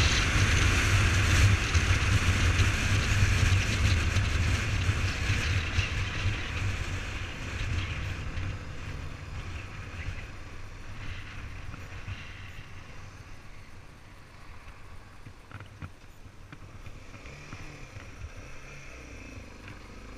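Motorcycle riding on a gravel road: steady engine note with tyre and wind noise, fading gradually over the first half and staying quieter as the bike slows.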